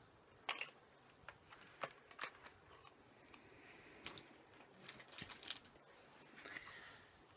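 Faint, scattered clicks, taps and rustles of small packaged items being handled and set down, with near silence between them.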